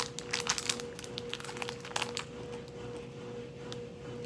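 Plastic candy wrapper crinkling as it is peeled open by hand, with quick crackles over the first two seconds, then fainter and sparser. A faint steady hum runs underneath.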